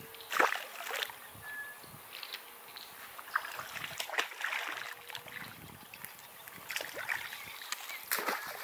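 Water splashing and sloshing in irregular bursts, the loudest about half a second in and again near the end.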